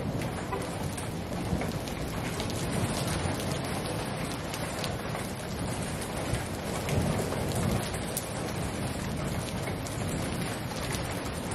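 Steady rain falling, with many separate drops ticking close by. A low rumble of thunder swells about two-thirds of the way in.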